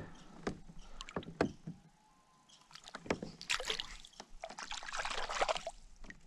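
A few sharp knocks against a plastic kayak, then about three seconds of splashing water as a smallmouth bass is released beside the kayak and swims off.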